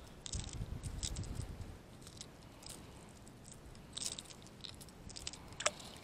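Faint handling noises close to the microphone: scattered short clicks and scrapes, with a low rumble in the first two seconds.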